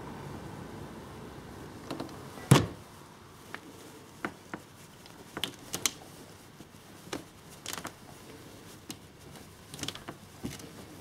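Irregular light clicks and taps against a window pane and its frame, with one louder knock about two and a half seconds in. A faint steady hiss fades away at the start.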